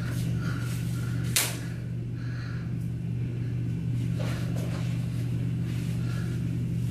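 A steady low hum, with one sharp click about a second and a half in.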